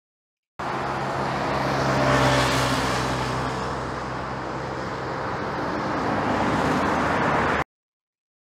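Busy highway traffic recorded at about 50 ft: a continuous wash of passing vehicles with a low engine hum, louder around two seconds in, easing, then building again. It starts about half a second in and cuts off abruptly about a second before the end.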